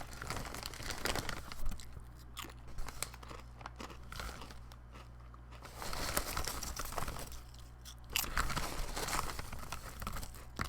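Potato chips being chewed with the mouth close to the microphone: bouts of dense, crisp crunching, quieter for a few seconds in the middle, over a steady low hum.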